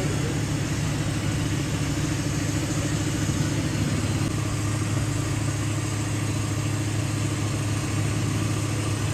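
An engine running steadily at idle: an even, unchanging low hum.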